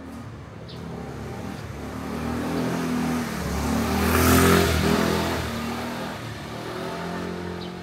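A motor vehicle passing close by: its engine grows louder, peaks about four and a half seconds in, then fades away.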